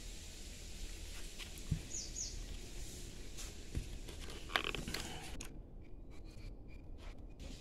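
Hands handling a plastic cylindrical Bluetooth speaker: light rubbing and a few sharp plastic clicks and knocks as it is turned over and its end-cap ring is taken off, the loudest knock about four and a half seconds in.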